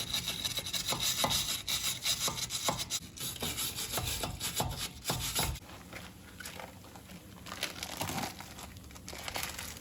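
Rubbing and scrubbing strokes on the brake hub and rotor during cleaning, quick and irregular for about five seconds, then quieter.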